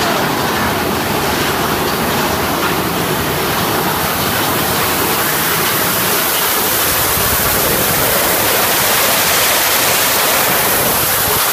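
Steady rushing of falling water from the waterfalls inside the ride's show cave, with no break. The hiss grows a little brighter in the second half.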